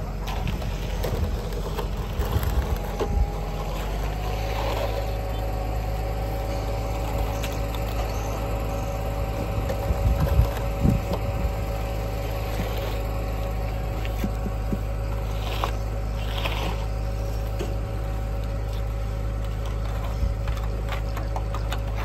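An engine running steadily at a constant speed, with a steady hum throughout. A few short knocks come about ten seconds in.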